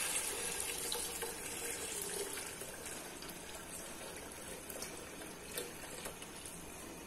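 Melted jaggery syrup poured in a steady stream from a plastic bowl into a hot aluminium pot of ghee and fennel seeds, the liquid splashing in. A hiss of steam fades over the first couple of seconds.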